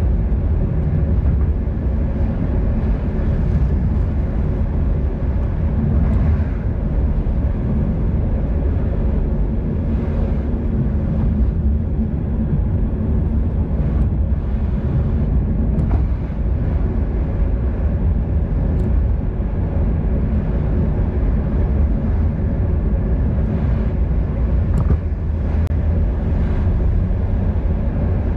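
Steady low rumble of wind on the microphone of a camera riding on a moving bicycle, with road noise underneath.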